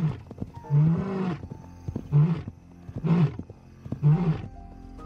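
Male African lion roaring: a run of short, deep roars coming about once a second, the dominant male asserting himself over the young males.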